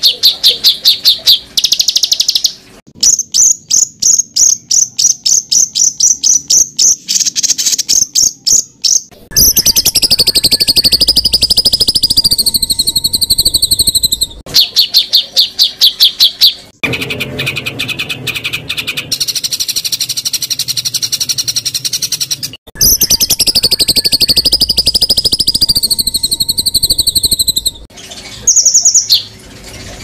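Songbird recordings spliced together. Rapid runs of sharp, high repeated notes, about six to eight a second, alternate with long, loud, warbling song phrases that carry a rough buzzy edge, and the segments change with abrupt cuts. This is the rapid-fire "tembakan" style of song used to train competition songbirds.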